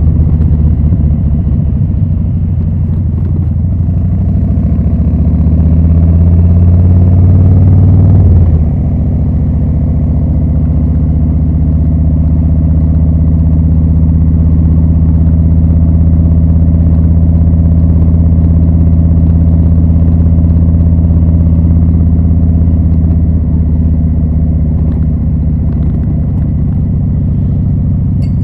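2020 Harley-Davidson Low Rider S's Milwaukee-Eight 114 V-twin running through Rinehart slip-on mufflers. The pitch climbs for a few seconds, drops sharply about eight seconds in, then holds a long steady note and eases off slightly near the end.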